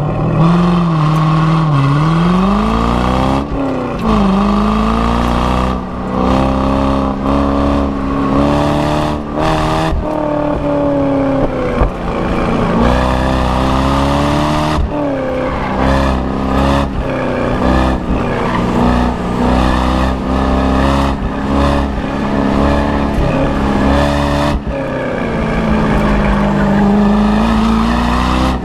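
Car engine pulling hard from a standing start, then rising and falling in pitch over and over as the driver goes on and off the throttle through an autocross course.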